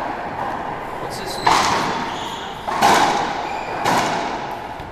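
Racquetball rally: three sharp cracks of the ball off racquets and walls, about a second and a quarter apart, each ringing out in the hard-walled court.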